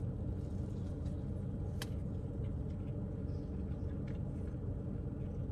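Steady low rumble of a car idling, heard inside its cabin, with one sharp click about two seconds in and faint chewing sounds.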